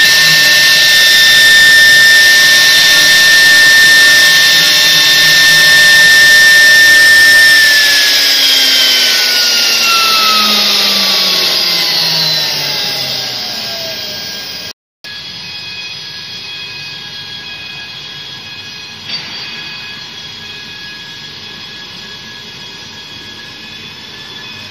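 Spindles of a two-head CNC router running with a high steady whine while carving wood panels, then spinning down about eight seconds in, the whine falling steadily in pitch and fading over several seconds. After a brief dropout a quieter steady machine hum remains.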